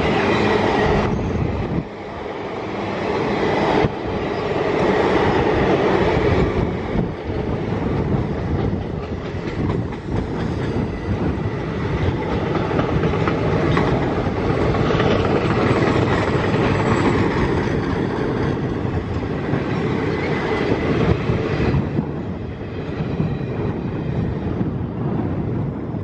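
Passenger coaches of a long-distance express rolling past at speed: a steady rumble of wheels on the rails with the clickety-clack of wheels over rail joints, easing a little near the end as the last coaches go by.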